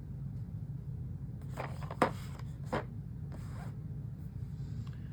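Handling noise of plastic action figures: a few short scrapes and one sharp click in the middle, over a steady low hum.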